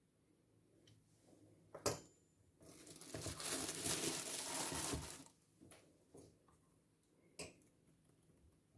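A sharp clack as a pastry wheel is set down on a wooden table, then about two and a half seconds of plastic cling film rustling, and a softer knock about two seconds later.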